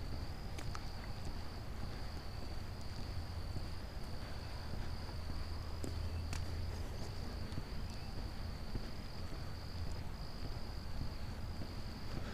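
Crickets trilling steadily, one high continuous chirring with brief breaks, over a low rumble.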